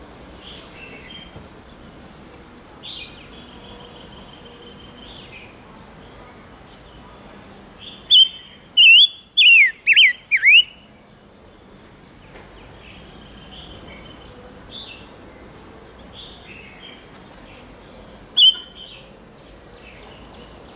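A caged chim ngũ sắc songbird calling. Soft, repeated chirps run throughout. About eight seconds in comes a loud burst of five or so sharp notes that whistle downward in pitch, and another loud single call comes near the end.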